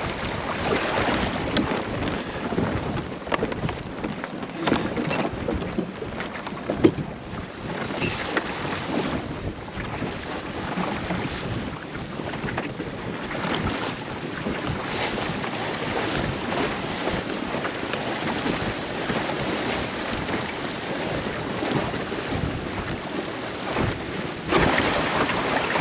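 Water rushing and splashing along the hull of a small clinker-built sailing dinghy under way, with wind buffeting the microphone. It gets louder near the end.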